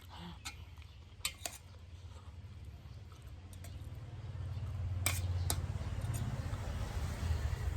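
A few sharp clinks of a spoon against a metal tray plate, with a low rumble growing louder from about halfway through.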